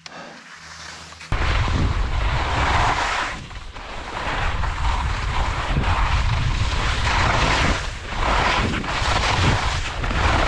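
Wind buffeting the microphone and skis hissing and scraping over spring snow during a downhill run through trees. The noise starts abruptly about a second in, a heavy low rumble with a hiss that swells and fades with each turn.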